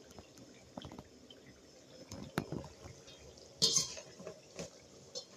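Mandazi frying in hot oil, with a few short knocks of a utensil against the pan and a louder burst of sizzle about three and a half seconds in.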